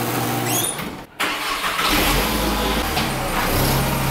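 Volkswagen Golf MK4's engine being started. It catches about two seconds in and settles into a steady idle.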